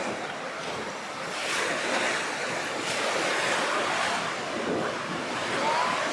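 Rough sea surf breaking and washing in waves, stirred up ahead of a typhoon, with wind over it; the rush swells with breaking waves about a second and a half in and again near three seconds.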